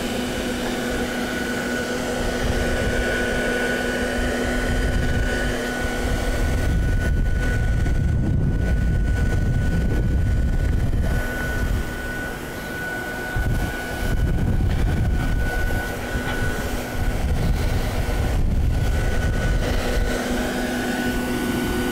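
Vacuum running steadily with a high whine, drawing air out of a homemade plastic-sheet vacuum bag that presses a fiberglass deck repair down while the epoxy cures. A low rumble swells and fades twice.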